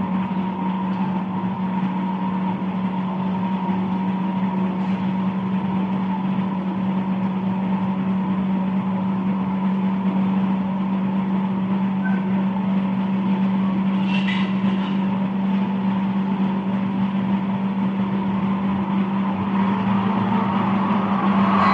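A steady machine hum: a constant low drone with a fainter higher tone above it, unchanging in pitch and level.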